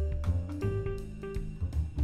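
Background music: a jazzy instrumental with strong bass notes and a steady drum beat.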